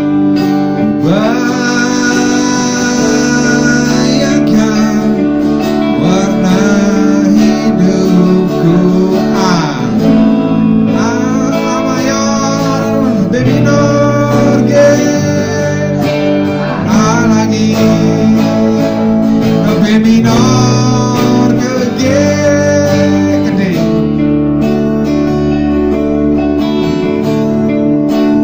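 Rock band playing live, electric guitars to the fore over bass and drums, with a lead melody line that bends up and down in pitch.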